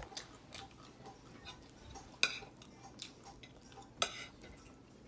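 Close-up eating sounds of someone eating fried chicken: small chewing clicks throughout, with two sharper clacks about two and four seconds in.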